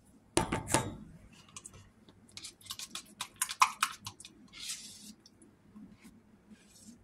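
Irregular household clatter: sharp clicks and knocks, the loudest cluster about half a second in, a run of lighter clicks after two seconds, and a short hiss around five seconds.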